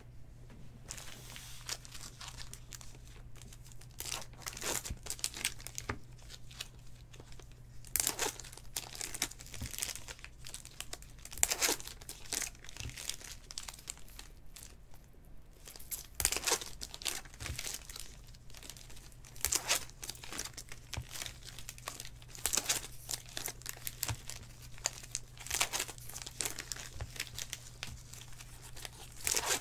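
Foil trading-card pack wrappers being torn open and crinkled by hand, in a run of short rustling bursts, over a faint steady low hum.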